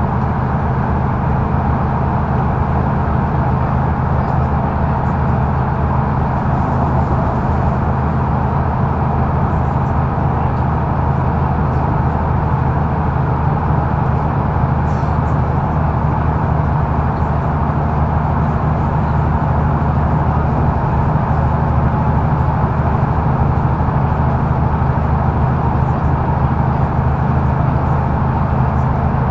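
Mercedes-Benz O530 Citaro facelift intercity bus driving, heard from inside the passenger cabin: a steady diesel engine drone mixed with road and tyre noise, holding an even pitch with no gear change.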